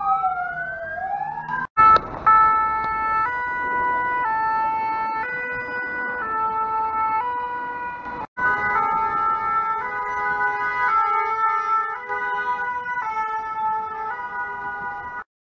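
A US-style wailing siren sweeping up and down, which gives way abruptly to a French two-tone 'pin-pon' siren on a Paris fire brigade vehicle, alternating between two notes about once a second. About halfway through, another fire brigade two-tone siren takes over, switching notes a little faster, with more than one siren overlapping.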